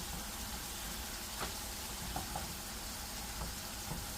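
Ground meat sizzling steadily in a frying pan, with a few light knocks as a nylon meat chopper is pressed and twisted into it.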